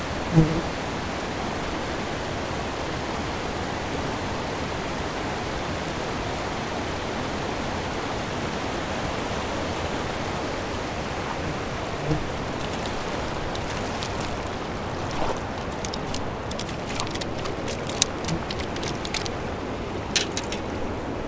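Steady rush of a shallow, fast river running over a stony riffle. In the second half a scatter of sharp clicks and knocks comes from stones on the pebble shore.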